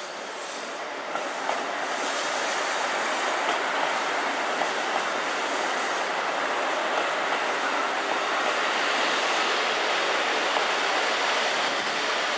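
KiHa 85 series diesel limited express train running in alongside the platform and passing close by, its engines and wheels on the rails sounding as one steady rumble. The sound grows louder over the first two seconds and then holds steady as the cars go past.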